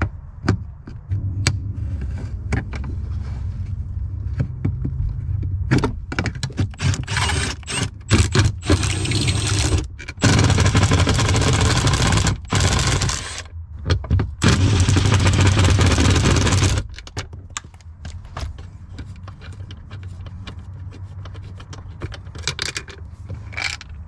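Cordless power tool running in several long stretches, undoing the shifter box's mounting bolts, loudest in the middle and stopping about two-thirds of the way through. Sharp clicks and scrapes of tools on metal come in between and afterwards.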